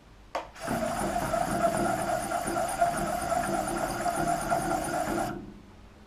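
Micro quadcopter's brushless motors, driven by a Cicada 4-in-1 10A BLHeli_S ESC, starting after a click and running for about five seconds with a steady high whine over an uneven, rough lower sound, then stopping abruptly. The ESC is shown as having a desync (synchronisation) problem.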